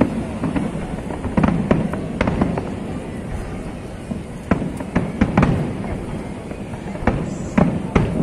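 Aerial fireworks exploding: a dozen or so sharp bangs at irregular intervals over a continuous low rumble.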